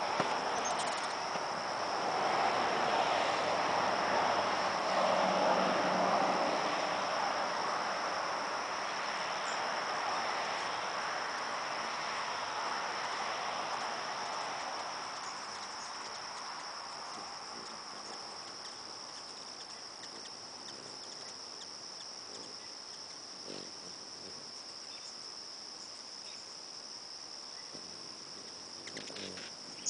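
Steady high-pitched trill of an insect chorus, unbroken throughout. Over it a broad rushing noise swells in the first few seconds and fades away by about halfway through.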